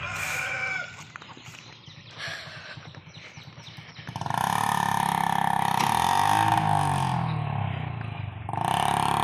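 Small motorcycle engine running, faint at first and then much louder from about four seconds in, with a steady high whine over a rough low drone whose pitch wavers and dips briefly before rising again near the end.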